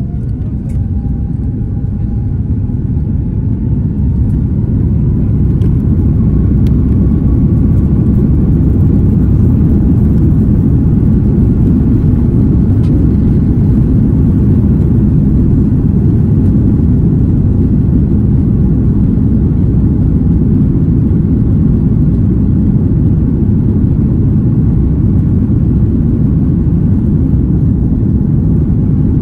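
Airbus A330-300's engines spooling up to takeoff thrust, heard inside the cabin: a faint rising whine over the first several seconds as the low rumble grows louder. It then settles into a steady loud rumble of the takeoff roll.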